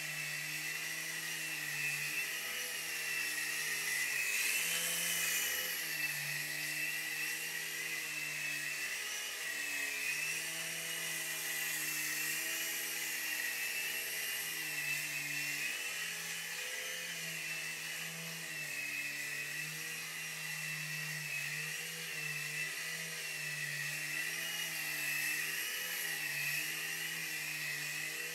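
Night Hunter mini coaxial RC helicopter in flight: the high whine of its small electric motors and the buzz of its two rotors, the pitch wavering gently up and down.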